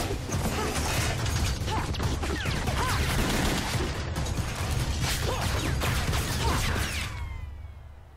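Sound effects from an animated fight scene: a rapid mechanical clatter with many bangs and impacts over a low rumble, fading out near the end.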